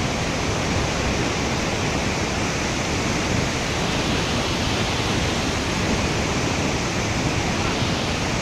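Waterfall, a steady, loud rush of falling water with no change.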